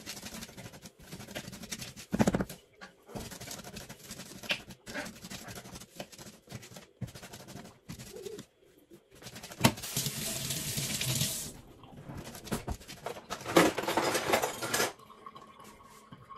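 Kitchen knife chopping fresh herbs on a plastic cutting board: runs of quick taps with short pauses, growing louder for a stretch about ten seconds in and again near the end.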